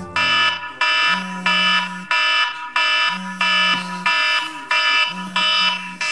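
A smartphone's wake-up alarm ringing on its speaker: a repeating pattern of bright tones about every two thirds of a second. A low buzz comes in roughly one-second spells, the phone vibrating on the wooden chair seat it lies on.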